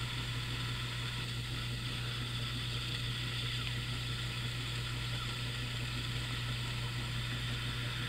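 Steady low hum with an even background hiss and no distinct events.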